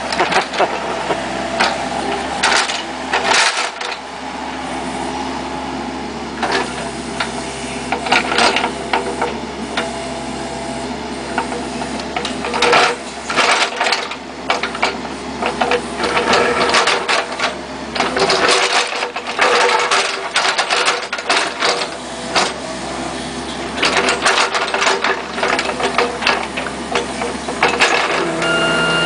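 Kubota KX71-3 mini excavator's diesel engine running steadily under digging load, with repeated scrapes and knocks as the bucket digs into soil and stones in the trench. A high steady whine starts near the end.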